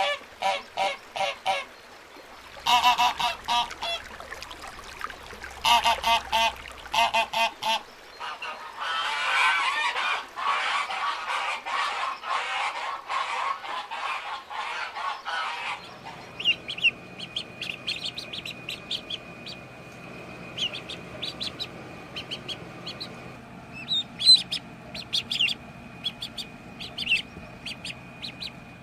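Ducks quacking in quick runs of repeated calls. About sixteen seconds in, the calls give way to short high calls over a steady low hum.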